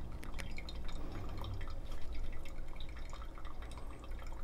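A thin stream of hot water from a gooseneck kettle pours onto coffee grounds in a paper-filter pour-over dripper, with coffee dripping through into the glass server below. It is a soft, steady trickle sprinkled with small drips, during a pulse pour of the brew.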